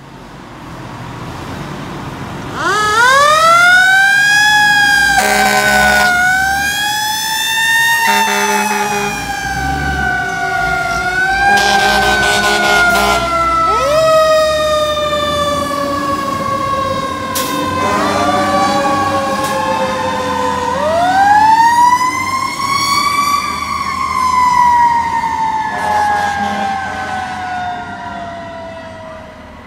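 Fire engine's mechanical siren wailing: it winds up quickly and coasts slowly down, again and again, with several short air horn blasts over it in the first half.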